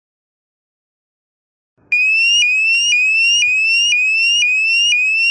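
PIR infrared motion alarm sounding its siren, starting about two seconds in after silence. It is a loud electronic tone that sweeps upward and resets about twice a second.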